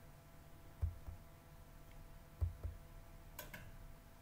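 Faint room tone with a steady low hum. Over it come a few soft low knocks and a brief sharp click about three and a half seconds in.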